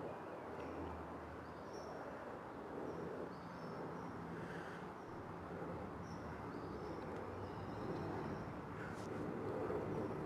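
Outdoor background: a steady rumble of distant traffic, with small birds chirping briefly now and then.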